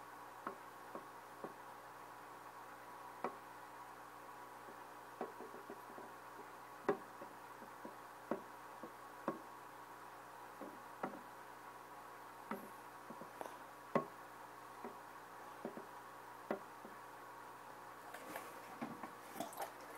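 Faint, irregular light knocks and clicks, roughly one a second, from a clear baster tube being moved about in a small aquarium, over a steady faint hum. A short burst of hissing knocks comes near the end.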